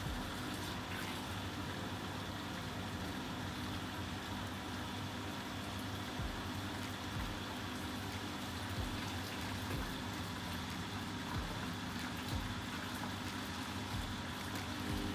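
Vestel washing machine running mid-cycle: a steady hum with irregular soft low thumps from the turning drum.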